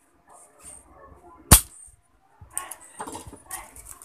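Soldering iron and tools working a pin loose on a TV circuit board while desoldering it: one sharp click about a second and a half in, then scratchy scraping and small clicks near the end.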